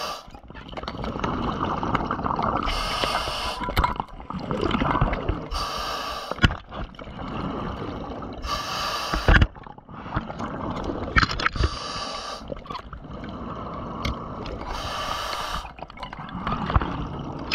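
Scuba diver breathing through a regulator underwater: a short hiss as the demand valve opens on each inhale, about every three seconds, with bubbly, rumbling exhales in between.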